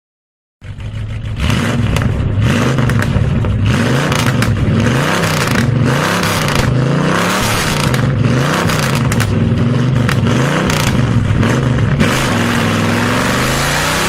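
Classic car engine revved up and down over and over, its pitch rising and falling about every second and a half. Near the end it settles into a steadier run and begins to climb slowly.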